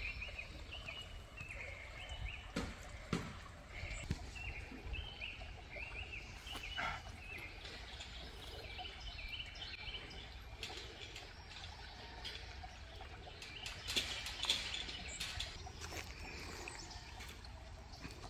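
Outdoor ambience: birds singing in short repeated phrases over a low steady rumble of wind on the microphone, with a few faint clicks.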